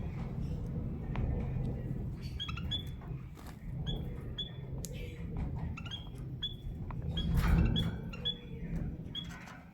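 A canary and a white-headed munia in a cage giving short, high chirps, a dozen or so scattered through, with light rustling and clicks of the birds moving in the cage, loudest about three quarters of the way in. A low steady hum runs underneath.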